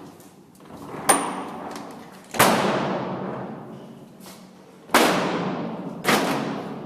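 Heavy fire doors slamming shut one after another: a sharp click about a second in, then three loud slams, each dying away in a long echo.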